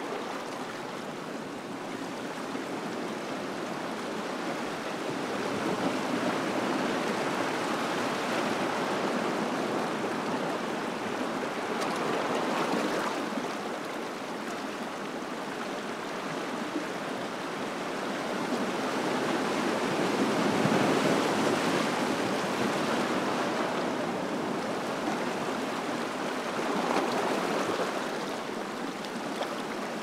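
Small ocean waves washing and swirling among shoreline rocks: a steady rush of water that swells and eases every few seconds as each wave comes in.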